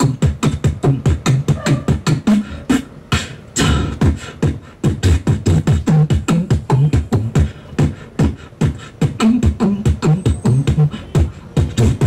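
Solo beatboxing into a handheld microphone: a fast, dense beat of mouth-made drum strikes, several a second, with low pitched bass notes held between them.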